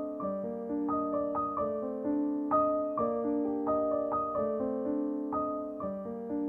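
Background piano music: a slow melody of sustained notes with no drum beat.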